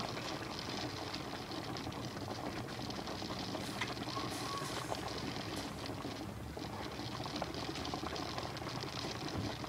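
Audi A6 2.7T's twin-turbo V6 idling steadily, heard from the open engine bay, with a fast, even mechanical whir. The engine is running after an overheat that had the coolant boiling up in the expansion tank.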